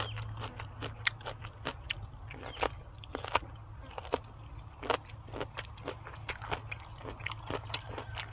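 Close-up chewing and biting of food: irregular sharp clicks, several a second, over a steady low hum.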